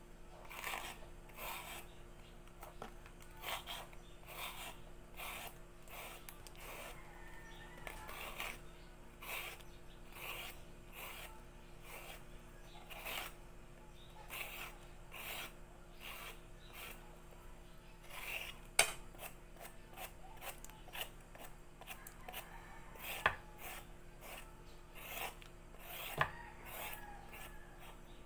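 Hand peeler scraping the ridged skin off a ribbed loofah (patola) in repeated short strokes, about one or two a second, with a few sharper clicks.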